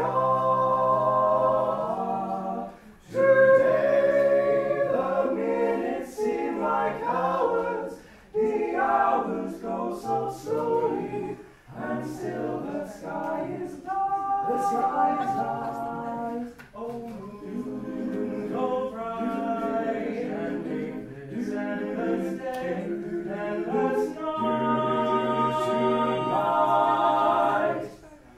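A cappella group singing in harmony, with held notes and short breaks between phrases.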